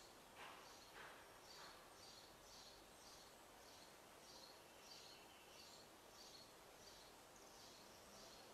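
Near silence, with a faint high chirp repeating evenly, a little under twice a second. A couple of soft taps come about half a second and a second in.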